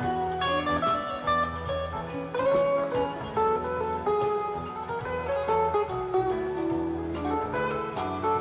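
Live rock band playing an instrumental jam: a lead guitar improvises melodic runs over bass, with no vocals.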